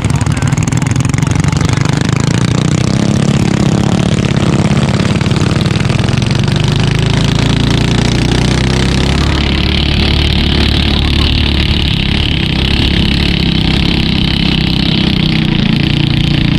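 Engine of a Thai long-tail racing boat (rua brue) running loud and steady, with a deeper drone joining about six seconds in and a hiss added from about ten seconds in.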